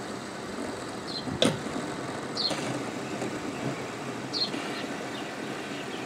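Plastic pop-it fidget spinners being flicked and handled on a wooden table, with one sharp click about a second and a half in. Under it runs a steady noise, and short high chirps come every couple of seconds.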